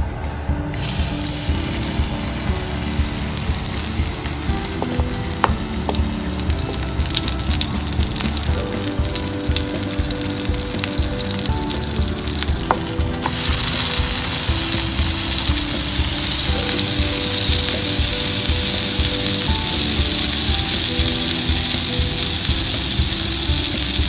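Beyond Burger plant-based patty sizzling in hot oil in a frying pan, with crackling spatter. The sizzle starts about a second in as the patty goes into the pan and turns louder and more even about halfway through, as the patty browns.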